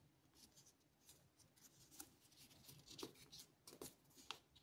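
Near silence with a few faint, short rustles and taps of a sheet of paper being folded and creased by fingers, beginning about two seconds in.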